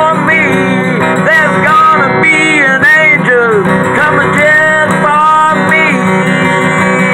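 Strummed acoustic guitar playing a blues song, with a man's voice singing a melody over it without clear words.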